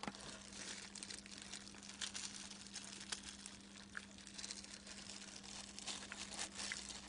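Faint crinkling of a disposable plastic glove and scattered light clicks of chopsticks handling pieces of boneless fried chicken, over a steady low hum.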